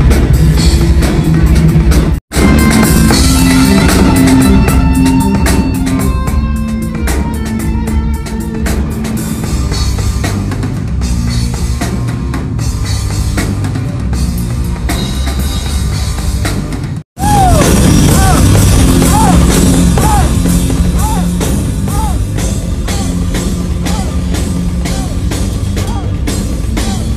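Live heavy rock band playing loud, led by a drum kit with electric guitar and bass. The sound drops out for an instant twice, about two seconds in and a little past the middle, where the recording is cut.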